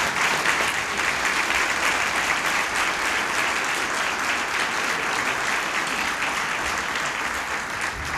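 A seated audience applauding steadily.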